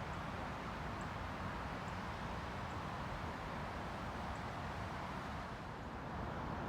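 Steady outdoor background noise, an even hiss with low rumble, with a few faint brief high chirps scattered through it.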